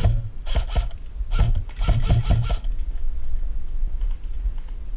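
Four short bursts of rustling and scraping in the first half, over a steady low rumble.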